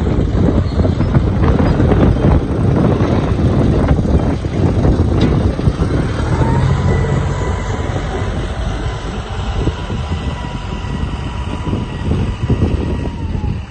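Excavator's diesel engine running hard with repeated clanking and knocking. About six seconds in, a steady high whine joins it and holds until near the end.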